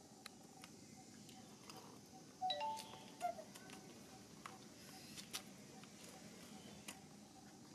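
A macaque chewing food with its mouth open: faint scattered clicks and smacks. Two brief high chirps stand out, about two and a half and three seconds in.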